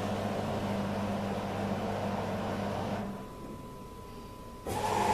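Beko washing machine running with a steady motor hum while struggling with a suds lock, the drum loaded with foam. About three seconds in the hum cuts out and it goes quieter, then a louder rushing noise starts near the end.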